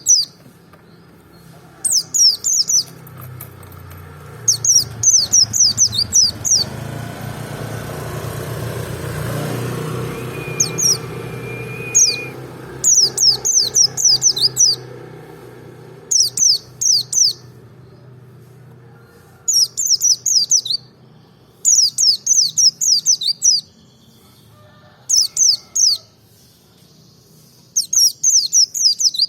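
Merapi white-eye (pleci) singing: short bursts of rapid, high, falling chirps, each under a second long, repeating every two seconds or so. A low rumble swells and fades under the song in the middle.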